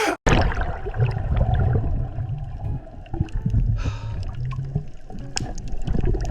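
Water sloshing and gurgling over a steady low rumble, with scattered small splashes and a brief hiss of spray about four seconds in.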